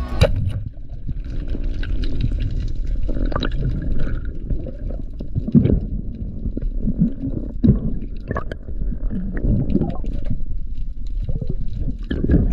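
Underwater noise picked up by an action camera in its housing: a muffled, rumbling wash of water with gurgles and a few sharper knocks and gurgles.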